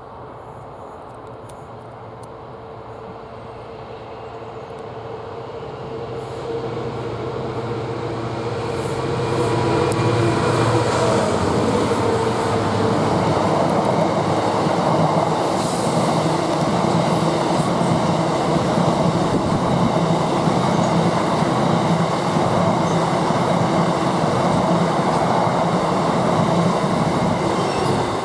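Class 66 diesel freight locomotive, its EMD two-stroke V12 engine running, approaching and passing with a train of empty stone wagons. It grows louder over the first ten seconds or so, then the wagons' wheels keep up a steady loud rumble and rattle on the rails.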